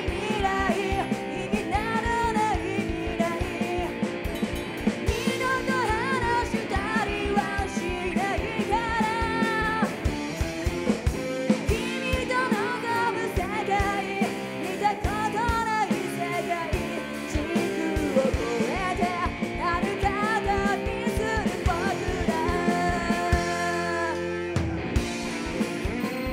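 Live rock band with a female lead singer: a woman's sung melody over electric guitar, keyboard and drum kit.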